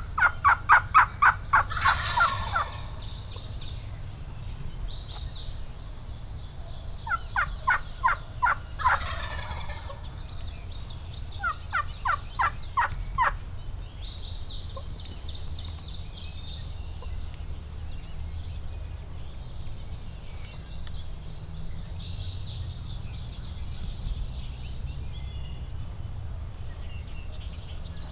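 Wild turkey calling: three runs of rapid, evenly spaced yelping notes, each about two seconds long, at the start, about seven seconds in and about eleven seconds in. Faint songbirds chirp in between.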